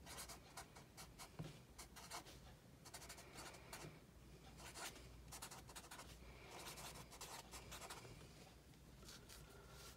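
Black Sharpie marker writing on a paper pad: faint scratching of the felt tip, in short runs of quick strokes as words are written out.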